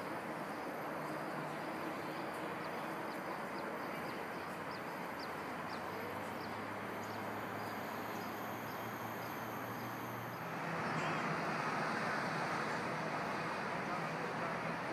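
Steady outdoor background noise, a wash like distant city traffic, with faint high ticks repeating about twice a second in the first half. The wash grows a little louder about two-thirds of the way in.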